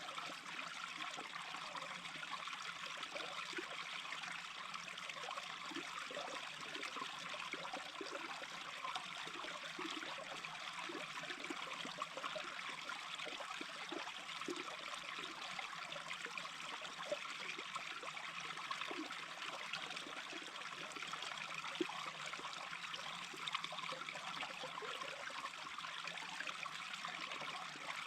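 Small stream babbling steadily over stones, with a continuous rush of running water and many small plinking, gurgling drops.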